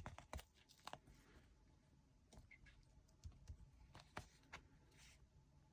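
Near silence with faint, scattered clicks and light rustling: small plastic bags of diamond-painting drills being handled and sorted.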